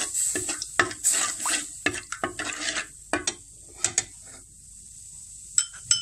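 Plastic spoon stirring a milk and powdered-milk mixture in an aluminium pot: a run of quick scraping, clinking strokes against the pot for about four seconds, then quieter, with two sharp clicks near the end.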